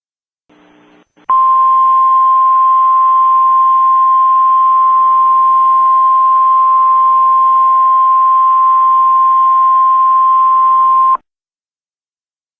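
Emergency Alert System single-tone attention signal: one loud, steady 1050 Hz tone over a band of hiss. It starts about a second in, holds for about ten seconds, then cuts off suddenly.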